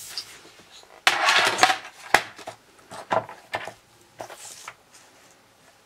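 A plastic paper trimmer and a sheet of card handled on a wooden tabletop: a scraping slide about a second in, a sharp knock just after two seconds, then lighter taps and rubs as the card is lined up against the trimmer's ruler.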